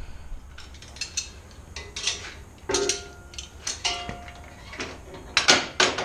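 Heavy steel three-point hitch parts and pins being handled on a compact tractor. There is a series of metal clanks and knocks, a few of them ringing briefly, and the loudest clatter comes near the end.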